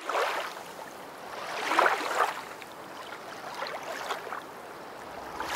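Rushing, splashing water: a swell right at the start, a louder one about two seconds in, then fainter splashes.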